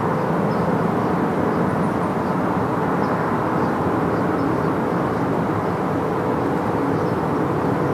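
Steady road noise inside a car's cabin at speed: tyres on asphalt and engine hum as heard by a windscreen-mounted dashcam, with a faint steady hum underneath.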